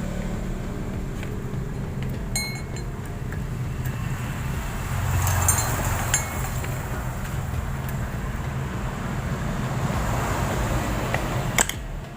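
Metal scooter pulley parts and tools clinking a few times with a short ringing tone, then a sharper knock near the end, over a steady low rumble of vehicle noise.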